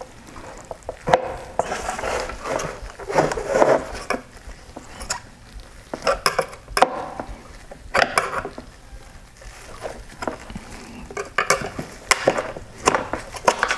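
Irregular clicks, taps and scraping of hard plastic as the headlight's main wire-harness connector is pried at with a flathead screwdriver and pushed into the plastic housing.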